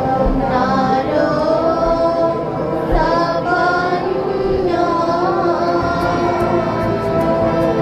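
Music: singing, high voices carrying a melody over steady held notes of accompaniment.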